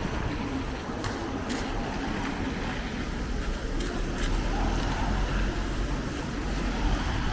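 Typhoon wind buffeting the microphone: a steady rushing noise over a deep rumble, with a few sharp ticks.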